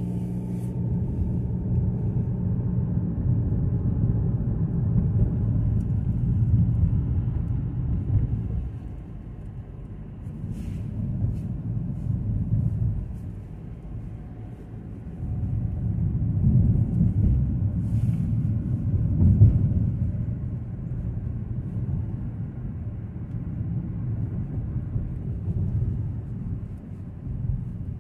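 Low rumble of road and engine noise inside the cabin of a moving Kia Seltos, growing louder and softer a few times as it drives.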